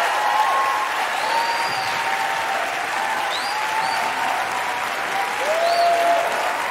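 Large audience applauding steadily, with a few cheers over the clapping.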